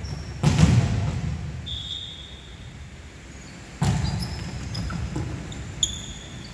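A volleyball is struck twice, each hit a sharp smack echoing around a large sports hall, about half a second in and again just before four seconds in. Sneakers squeak on the wooden court between and after the hits.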